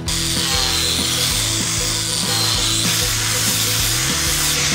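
Angle grinder with a flap disc grinding the leaf-spring steel of a machete blade: a steady abrasive hiss that starts abruptly, over background music.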